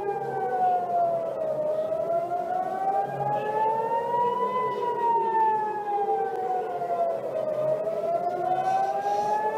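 Recorded civil-defence warning siren wailing, its pitch sliding slowly down and back up, each fall or rise taking about three seconds, with several tones sounding together.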